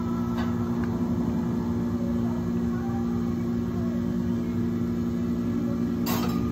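Matcha latte poured from a shaker over ice in a plastic cup, over a steady low hum of cafe machinery; a short clatter about six seconds in.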